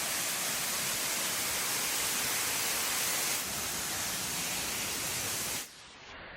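Steady rushing roar of a waterfall, as one even wash of noise with no distinct events. It cuts off abruptly near the end, leaving a much quieter, duller hiss.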